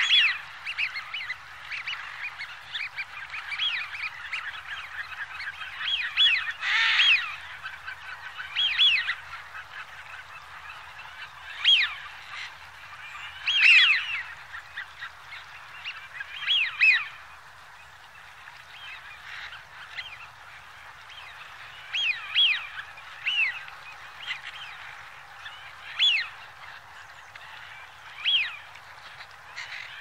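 Eurasian wigeon whistling: many short whistled calls that rise and then fall, from several birds, coming irregularly and sometimes overlapping, over a steady hiss.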